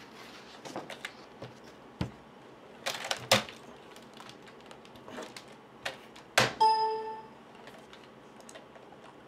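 A baby's hands slapping and pressing the keys of a computer keyboard: irregular clicks and knocks, with a small flurry about three seconds in and the hardest hit about six and a half seconds in. Right after that hit, a short steady tone rings for about half a second.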